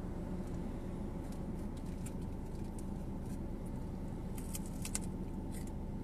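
Steady low rumble with scattered light clicks and jingles, most of them about four to five seconds in.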